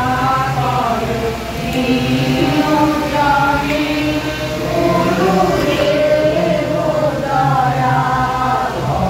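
A group of women singing a devotional chant together, in long held notes that rise and fall in a slow melody.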